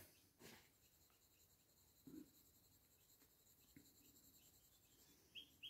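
Near silence: faint, soft shaking of a garlic powder shaker over raw meat, with a few short, faint high chirps near the end.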